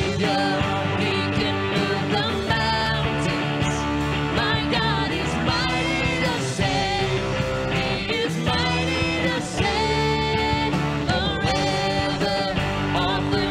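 Live church worship band playing a contemporary worship song, with guitar prominent.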